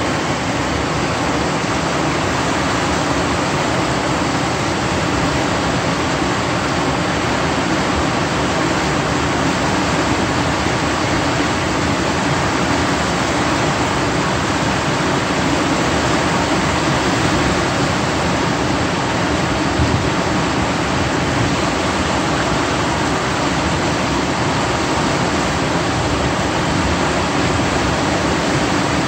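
Steady rush of water pouring from a dam's open spillway gates and churning through the turbulent river below.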